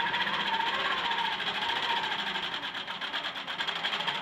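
Block Rockit quilting machine stitching steadily at its lower speed: a fast, even mechanical chatter of the needle running through fabric.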